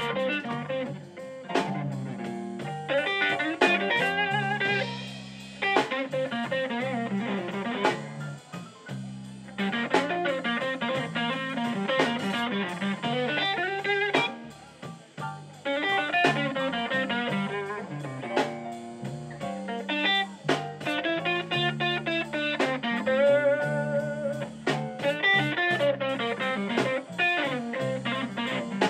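Live blues played on an electric guitar over a drum kit, with no singing.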